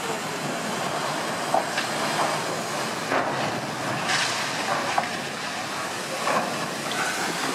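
Steel ship hull ploughing up onto a gravel beach: a steady rushing, grinding noise with scattered sharp cracks and creaks.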